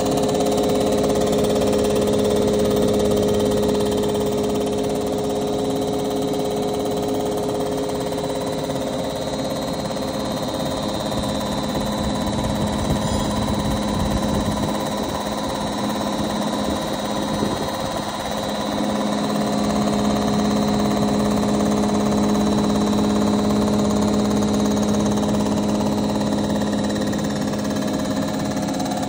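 Metal resurfacing machine's spindle motor running steadily with a constant hum and a faint high whine, after the finishing skim across the crankcase cap's mating face.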